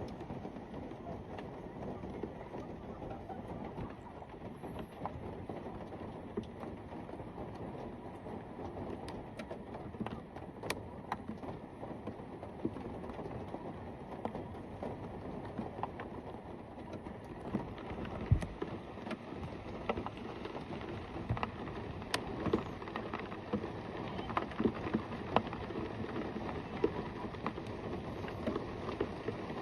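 Steady rain falling, with many separate drop hits striking close by throughout.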